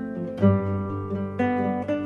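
Background music: an acoustic guitar playing plucked notes and chords, with fresh notes struck about once a second.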